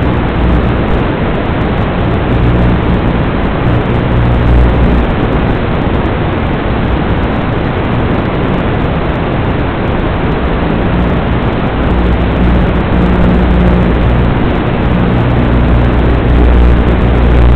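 Loud, steady rushing noise with a low drone that swells and eases, from a 5-inch FPV quadcopter in flight.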